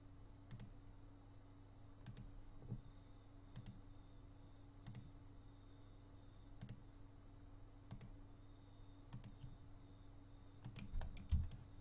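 Computer mouse button clicks: about ten single, sharp clicks spaced irregularly, roughly one a second, each a Ctrl+left click placing a new vertex. Under them runs a faint steady electrical hum.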